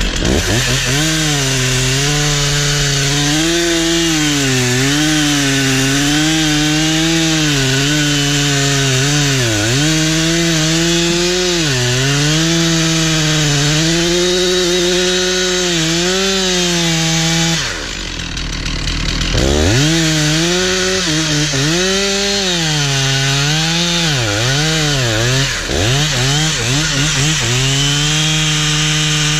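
Stihl 046 two-stroke chainsaw cutting into a standing tree at high revs, its pitch wavering as the chain loads up and frees. About two-thirds of the way through, the revs drop away for a couple of seconds, then the saw goes back into the cut.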